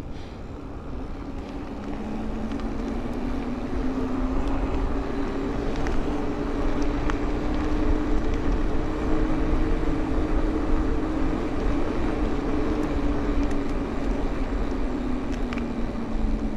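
Giant Trance 29 mountain bike rolling at speed: knobby tyres humming, with wind rumble on the helmet camera. The hum rises as the bike speeds up over the first couple of seconds and drops back as it slows near the end.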